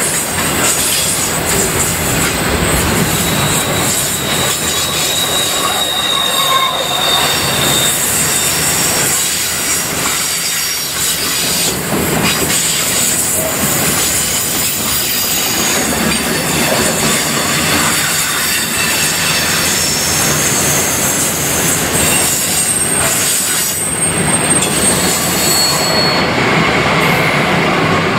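Container freight wagons rolling past close by: a steady loud rumble and rush of steel wheels on rail, with thin high-pitched wheel squeals coming and going and some clickety-clack over the rail joints.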